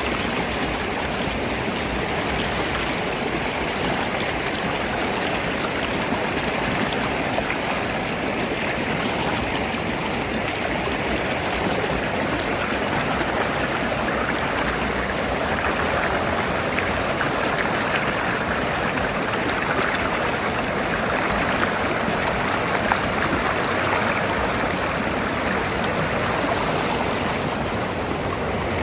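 A forest river running over rocks, a steady rushing and babbling of water.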